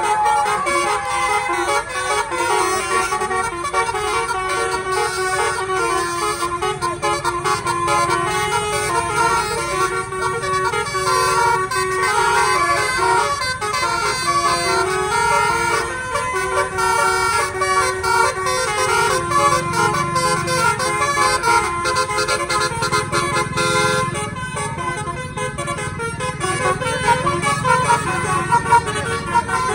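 Bus telolet horn playing a continuous tune, its notes stepping up and down one after another, over a low vehicle rumble.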